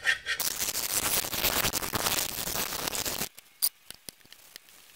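Hand gasket scraper scraping old gasket material off the flange of a steel differential cover, a continuous scrape that cuts off suddenly a little over three seconds in, followed by a few faint clicks.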